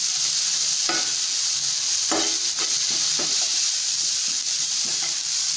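Sliced onions and ginger-garlic-green chilli paste sizzling in oil in a nonstick pan, a steady hiss. A spatula stirs and scrapes through it in irregular strokes, as the paste is sautéed until its raw smell goes.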